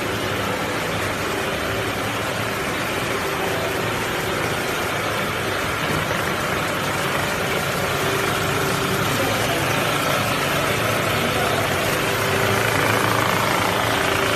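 Hard candy production line machinery running steadily: a continuous mechanical noise with a few held steady tones, slowly growing a little louder.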